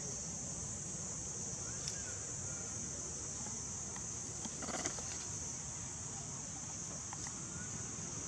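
Steady high-pitched insect drone, with a short rustle and crackle of dry leaves a little under five seconds in as a monkey moves through the leaf litter, and two faint, brief rising-and-falling chirps.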